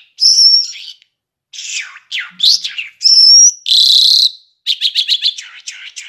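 A caged lark singing a varied song in separate phrases: clear whistled notes, a buzzy note, and a rapid run of short repeated notes near the end.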